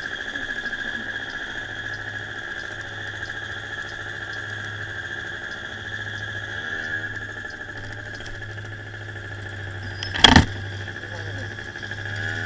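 CPI Aragon scooter engine running while riding at town speed, picking up revs a few times, with a steady high whine over it. A sharp thump about ten seconds in is the loudest sound.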